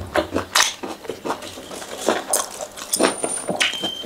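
Close-miked chewing of fried flat rice noodles, with irregular wet mouth clicks and smacks, and the fork and spoon scraping and tapping in a styrofoam takeaway box.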